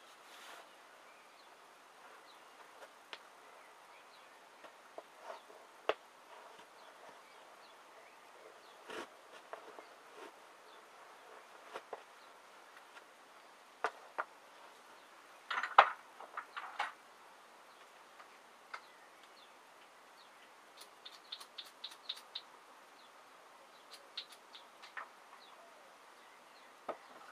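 Scattered creaks, taps and squeaks from clear-upper Converse All Star sneakers as the feet shift and flex, over a faint steady hiss. The loudest cluster comes about halfway through, and a quick run of high ticks about three quarters of the way in.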